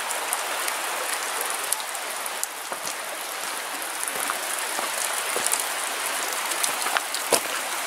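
A small waterfall trickling down a fern-covered rock wall. It makes a steady splashing hiss with scattered sharp drips.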